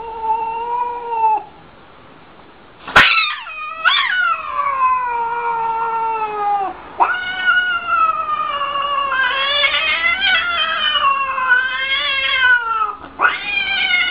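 A cat caterwauling. First comes a short meow. After a pause, a sharp click about three seconds in is followed by long, drawn-out yowls whose pitch wavers up and down, one running into the next.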